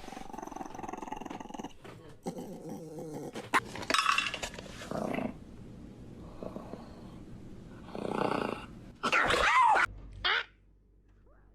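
A dog growling and vocalising in a series of separate bursts, with a louder wavering call about nine seconds in.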